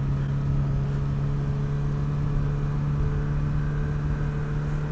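Motorcycle engine running at a steady cruise, a constant even hum, with wind rumbling on the microphone.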